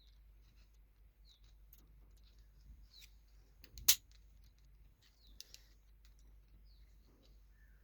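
Light clicks and taps of small phone parts and tools being handled while reassembling a keypad phone, with one sharper click about four seconds in.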